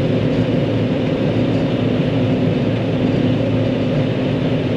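John Deere 9500 combine running steadily while harvesting corn: a constant engine and machinery drone with a steady low hum.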